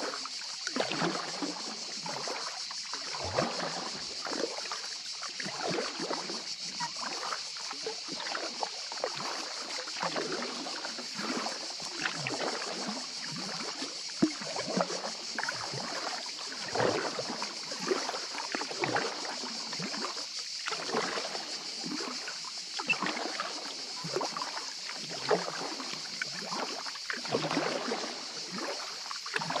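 Kayak paddle strokes on calm water from an inflatable kayak: the blades dip and splash about once a second, with water dripping off the paddle, over a steady high hiss.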